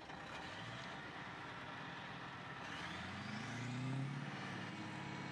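Bulldozer's diesel engine running, revving up about three seconds in so that its pitch rises, with a higher whine climbing along with it.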